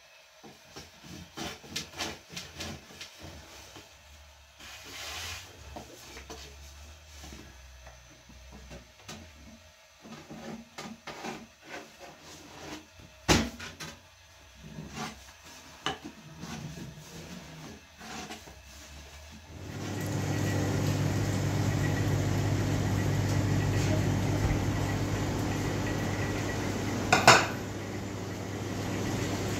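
Light scattered taps and knocks of dough being handled and set out on a floured cloth and wooden board, with one sharper knock about halfway through. About two-thirds of the way in, this gives way to the steady hum of a restaurant kitchen, with pots and dishes clinking and one loud clatter near the end.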